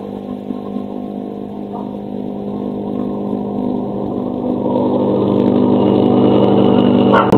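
Motor vehicle engine running at a steady pitch, growing steadily louder as it approaches, with a sudden sharp hit near the end.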